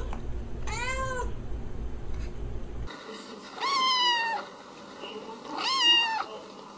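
A cat meows once. Then a kitten meows twice in higher-pitched cries while it is being rubbed.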